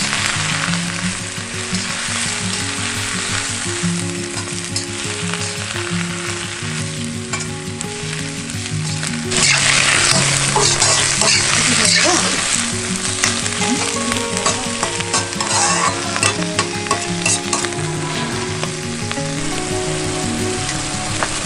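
Food sizzling and frying in a hot pan, growing much louder for a few seconds about nine seconds in. Background music with a stepping melody plays underneath.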